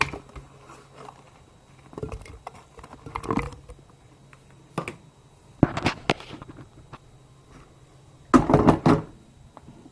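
Strawberries being dropped into a blender jug: a series of separate thuds and clatters against the jug, the loudest cluster near the end.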